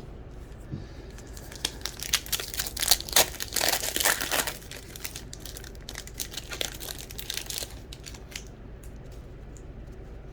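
The plastic wrapper of a 2021 Donruss baseball card pack being torn open and crinkled by hand: a dense run of crackles lasting several seconds, loudest in the first half.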